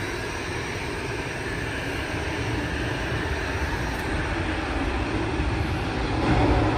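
Jet airliner's engines running as it rolls along the runway, a steady rumble and whine that grows louder toward the end.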